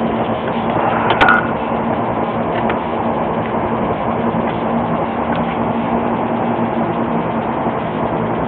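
A machine running with a steady hum under a rushing noise, and a couple of light clicks about a second in.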